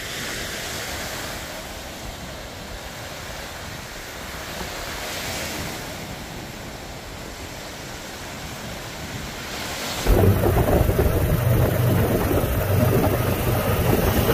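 Small lake waves breaking and washing up a sandy shore, swelling and fading every few seconds. About ten seconds in, the sound cuts suddenly to a much louder, steady low rumble of a vehicle in motion.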